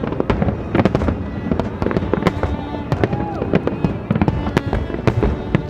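Fireworks display: a dense run of aerial shell bangs and crackles going off several times a second. Classical violin music plays over it.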